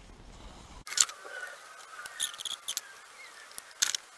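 Small brush dabbing and dragging U-Pol Grey Stripe brushable seam sealer into the seams of a primed steel floor pan: a few short, sticky scrapes and dabs, with a faint wavering squeak.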